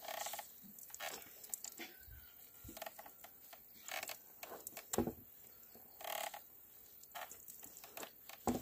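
Scattered rustles, scrapes and sharp knocks as a woven sack of ground seed is worked and squeezed between bamboo poles over a wooden beam in a traditional hand oil press, with a louder knock about five seconds in and another near the end.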